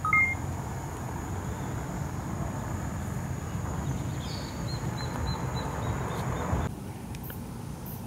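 A short two-tone electronic beep, then steady outdoor background hiss with a faint high whine and a few faint high chirps about four to five seconds in; the hiss drops off suddenly near the end.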